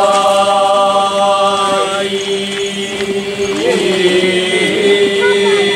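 Voices chanting together in long drawn-out notes, with one held note standing out over the steady drone for the first two seconds.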